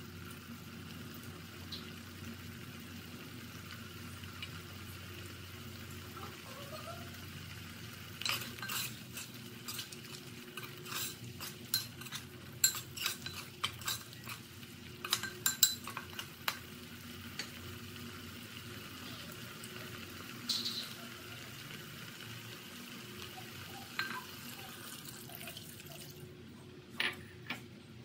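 Metal ladle clinking and scraping against a cooking pot as thick fish curry is stirred: a run of clinks through the middle, then a few more towards the end. A steady low hum sits underneath.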